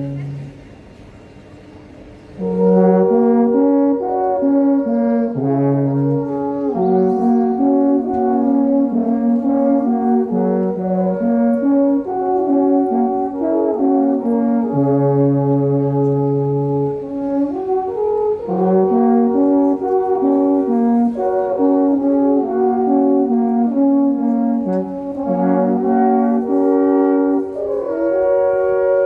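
Five wooden alphorns playing a slow tune together in harmony, with several long notes held and overlapping and a lower note sounding under them now and then. The playing dips almost to nothing about a second in and starts again around two and a half seconds in.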